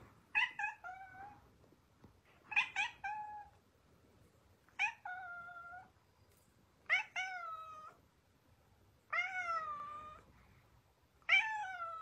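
Domestic tabby cat meowing six times, one meow about every two seconds. Each meow opens with a short sharp yelp and runs into a longer held tone that sinks slightly in pitch.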